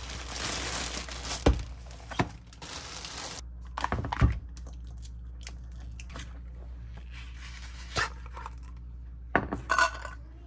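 Household handling sounds: about three seconds of rustling or tearing, then a few scattered sharp clicks and knocks, the loudest around the middle and near the end.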